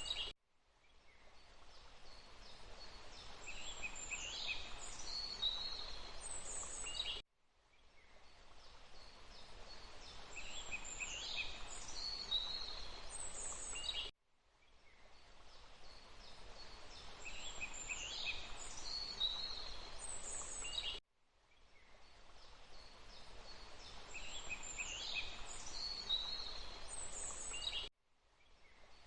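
Steady rush of running water with high chirping bird calls: a short forest recording looped about every seven seconds. Each repeat begins with a sudden drop-out and fades back in.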